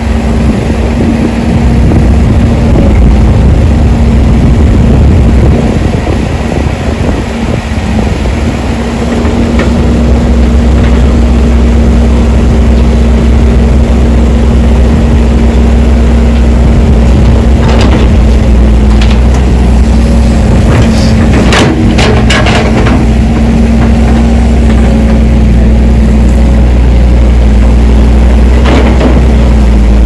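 Diesel engine of a crawler excavator running steadily with a deep hum. A cluster of sharp knocks comes a little past halfway, and another near the end.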